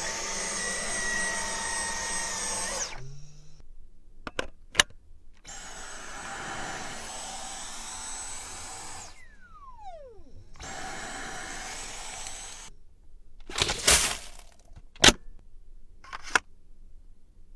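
Vacuum cleaner motor running in three short stretches, each with a high steady whine. After the second stretch the whine falls in pitch as the motor spins down. Several sharp clicks sound between the runs, the loudest near the end.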